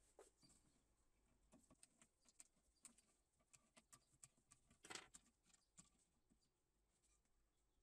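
Near silence broken by faint scattered clicks and taps from a T-handle hex key and small metal fittings being handled on a jigsaw table's blade-guide bracket, with one slightly louder tap about five seconds in.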